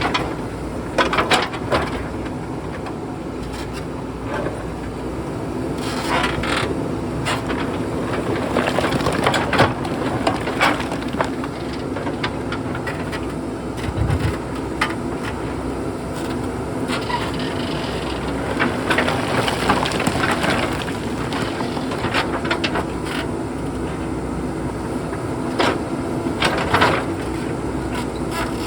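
JCB backhoe loader's diesel engine running steadily under load, with repeated sharp knocks, cracks and scraping as the bucket digs into and moves rock and stones.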